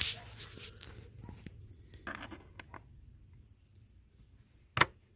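Scattered light clicks, scrapes and rustles of hands working at the plastic trim cover over a seat-rail bolt, with one sharp plastic click near the end.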